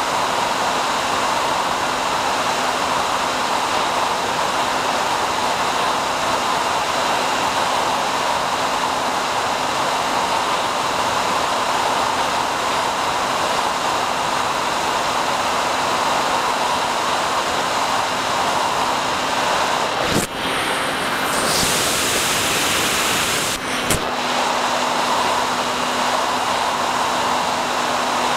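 Steady hiss on the audio channel of the FPV plane's analog video downlink, with a faint steady hum under it. About twenty seconds in it briefly drops out, then turns harsher for a couple of seconds and ends with a click.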